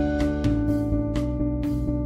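Instrumental background music with held notes and a steady light beat.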